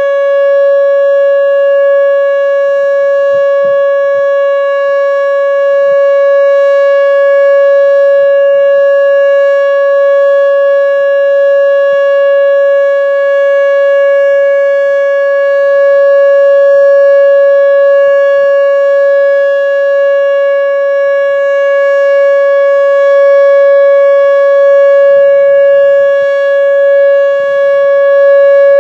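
Whelen WPS-2910 electronic outdoor warning siren sounding its steady alert signal: one loud, unwavering tone with a stack of overtones, no rise or fall in pitch.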